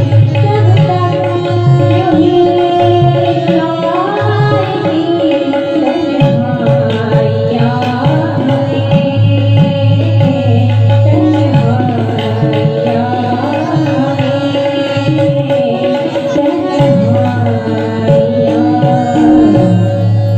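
A woman singing a Hindi song, accompanied by tabla and harmonium, with a steady held harmonium note under the melody.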